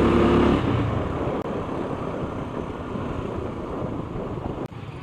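Motorcycle on the move: a steady engine note for about the first half-second, then mostly rushing wind and road noise as the engine quietens.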